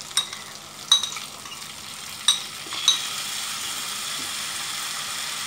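Four sharp clinks of a metal utensil against the frying pan as raw-mango pickle is scraped into the hot oil with the stuffed green chillies, followed from about three seconds in by a steady sizzle.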